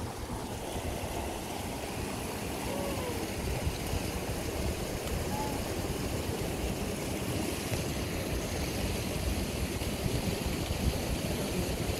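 Fast mountain stream rushing over boulders and small rapids, a steady rushing noise.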